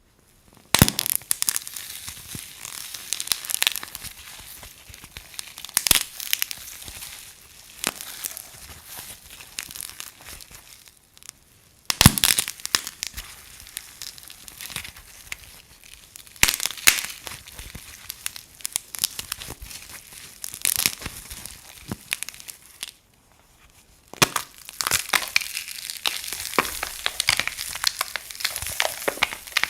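Dry soap being crushed, crumbling with dense crackling and repeated sharp crunches. There are two short breaks, about eleven seconds in and about twenty-three seconds in.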